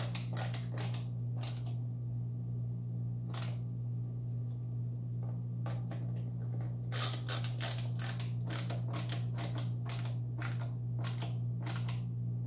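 Hand screwdriver turning screws tight into a Onewheel Pint's rail to fasten a protective plate: irregular runs of sharp clicks, a short run at the start and a longer one in the second half, over a steady low hum.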